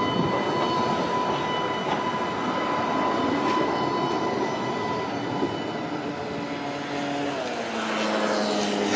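Articulated electric tram pulling into a stop: rumbling wheels on rail under a steady electric whine from its traction drive. In the last few seconds the whine drops in steps as the tram brakes to a halt.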